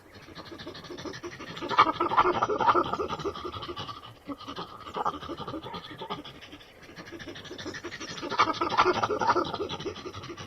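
Monkeys chattering in a rapid, rough stutter of short pulses, growing louder about two seconds in and again near the end.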